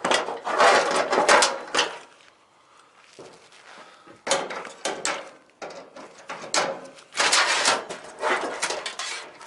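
Clattering and scraping of metal parts and wiring in several rough bursts, with a quieter stretch of about two seconds near the start, as a clothes dryer is stripped for scrap.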